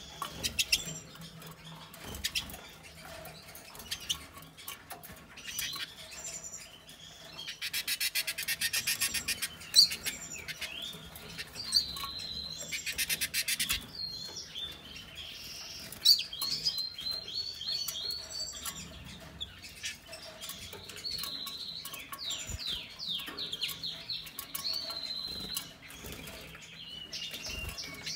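A female American goldfinch and a female black-chinned siskin bathing in a shallow water dish. There are two bursts of rapid wing-fluttering and splashing, the first about eight seconds in and the second about twelve seconds in. Short chirps and twittering calls come throughout.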